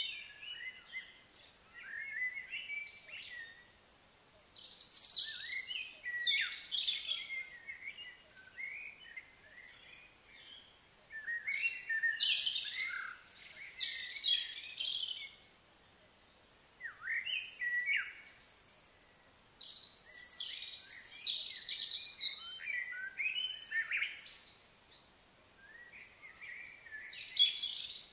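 Songbirds chirping and trilling in busy bursts a few seconds long, with quieter gaps of a second or two between them.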